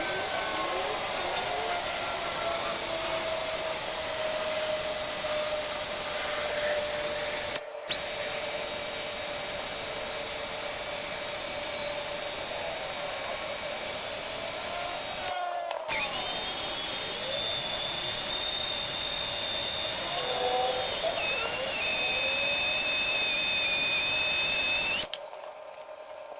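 A handheld power tool running steadily with a high whine. It comes in three long stretches broken by two brief gaps, with the pitch shifting between stretches, and it stops shortly before the end.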